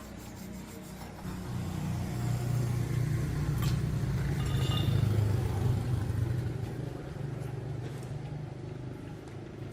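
A motor running with a steady low hum that grows louder over the first few seconds, then slowly fades.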